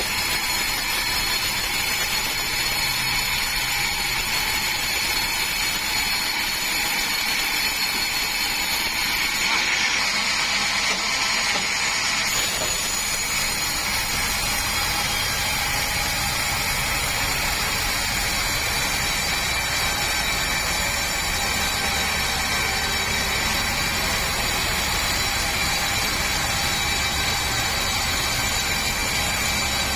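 Sawmill machinery running steadily, an engine drone under a high whine with several steady tones, a little brighter for a couple of seconds around ten seconds in.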